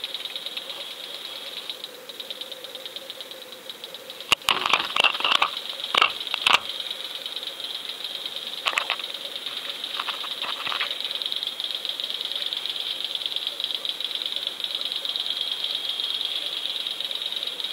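Underwater recording from a camera on a fishing line: a steady high-pitched buzzing rattle. About four to six and a half seconds in comes a burst of sharp knocks and clatters, with a few lighter ones near nine and ten seconds.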